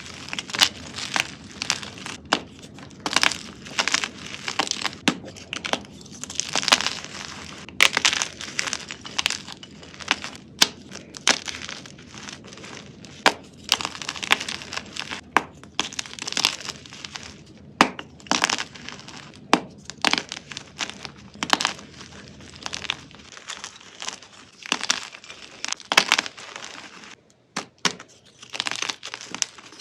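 Dense, irregular crunching and crackling of something brittle being crushed, with sharp cracks coming several times a second.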